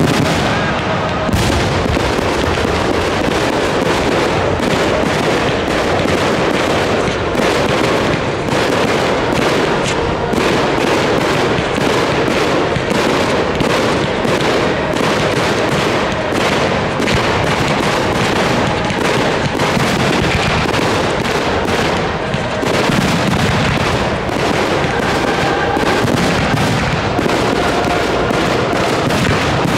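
Fireworks display firing without a break: a dense, rapid run of bangs and crackles as shells and comets burst overhead.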